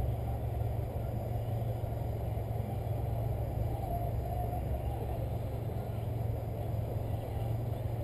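Car engine idling, heard from inside the cabin as a steady low hum over a soft rumble.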